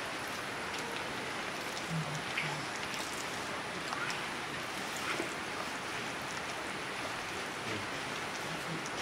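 Steady, even hiss of background noise with a few faint scattered ticks.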